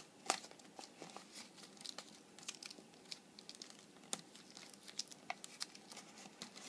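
Brown paper crinkling and rustling as its slit edges are folded down and pressed around the end of a cardboard toilet-roll tube, in scattered small crackles and ticks.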